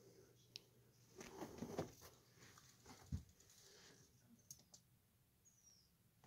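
Faint scuffling and light claw taps from a pet squirrel moving over bedding and a wooden dresser top, with one soft thump about three seconds in.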